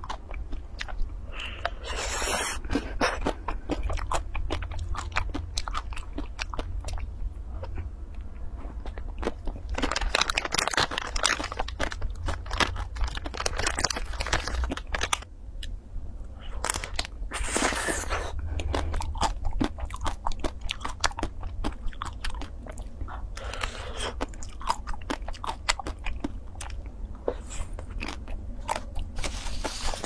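Biting, crunching and chewing of a chocolate-coated ice cream bar with nuts in its crisp shell: a constant run of sharp crackles, thickest about two seconds in, again from about ten to fifteen seconds, and around eighteen seconds.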